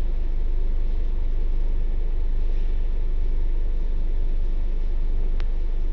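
Bus engine idling while the bus stands still, heard from on board as a steady low rumble, with a single sharp click about five seconds in.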